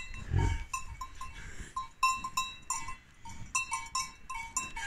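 A small neck bell on a running yak clanging in quick, uneven strikes, about three to four a second, all at the same pitch. A dull thump sounds about half a second in.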